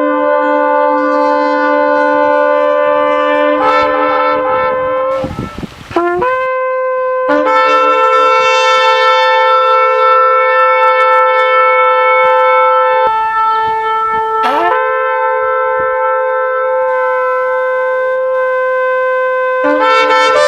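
Shofar (ram's-horn trumpet) blown in long, held blasts. The note breaks off about five seconds in and comes back a second later, then shifts pitch and slides briefly upward about two-thirds of the way through.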